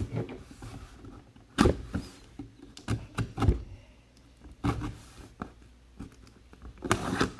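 A box being handled and opened by hand: irregular knocks, clicks and scrapes of packaging, with the sharpest knocks about a second and a half in, around three and a half seconds in, and near the end.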